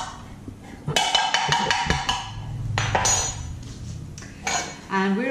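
A small jar of mustard being twisted open: a run of quick clicks for about a second, then a short rasp.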